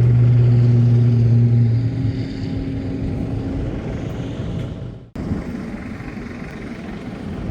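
Steady engine hum of a vehicle with a strong low drone and a couple of higher steady tones, which fade after about two seconds into a steadier noisy hum; the sound breaks off abruptly about five seconds in and resumes as a similar hum.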